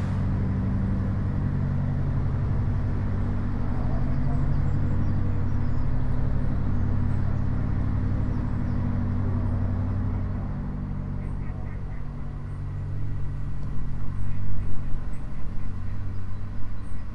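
Narrowboat engine running steadily with a low, even chug, echoing inside the brick tunnel. It eases off about ten seconds in as the boat comes out into the open, and uneven louder bumps of noise come in near the end.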